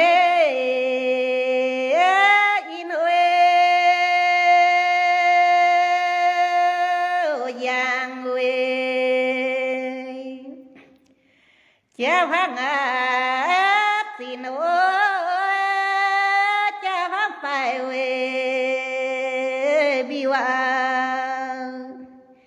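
A woman singing a Red Dao hát lượn folk song unaccompanied. She sings two long phrases with sliding, drawn-out held notes, one held steady for several seconds, and a short pause for breath near the middle.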